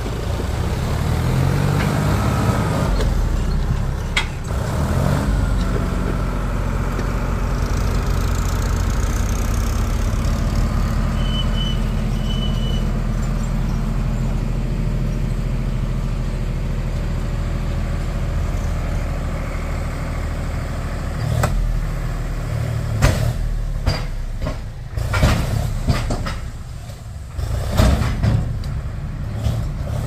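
Diesel farm tractor engine running, its pitch rising in the first few seconds, then held steady while the hydraulic tipping trailer lifts its load of mud. In the last third come a series of sharp knocks and clunks as the mud slides out of the tipped trailer.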